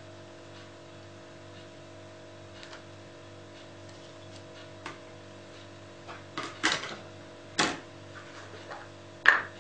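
A steady faint electrical hum, then from about six seconds in a few sharp clicks and knocks as a clear acrylic stamp block and other small crafting items are handled and set down on a cutting mat, the loudest knock near the end.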